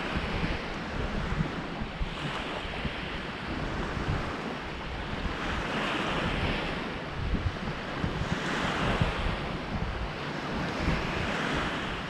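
Waves breaking and washing up onto a beach, swelling and fading about every three seconds, with wind buffeting the microphone.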